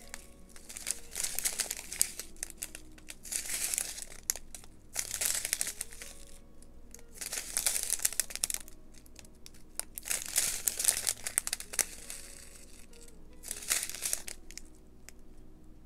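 Small clear plastic packets of resin diamond painting drills crinkling as they are handled and turned over, in repeated short bursts.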